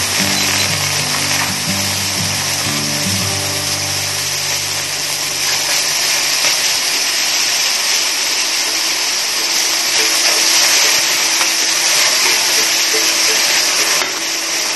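Tomato, ginger and Sichuan preserved mustard slices sizzling in hot sesame oil in a stainless steel wok, stirred with a metal spatula: a steady hiss.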